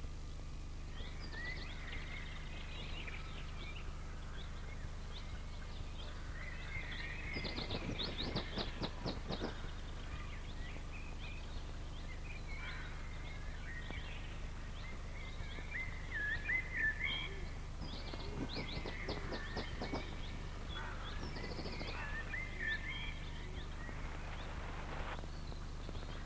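Wild birds chirping and singing, with two spells of rapid rattling chatter, a few seconds apart, that stand out above the birdsong, over a steady low hum.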